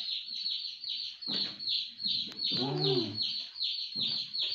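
A steady, even run of high bird chirps, about four a second, each one falling in pitch. A short low voiced hum comes a little past halfway.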